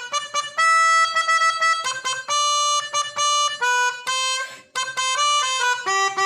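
Basuri 'telolet' bus horn playing a quick melody, one note at a time, with short notes and longer held ones changing pitch every fraction of a second.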